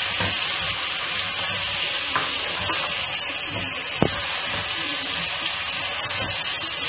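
Chopped onions sizzling in hot ghee with ginger-garlic paste, freshly added to the pan and stirred with a spatula that scrapes the pan; one sharp tap of the spatula about four seconds in.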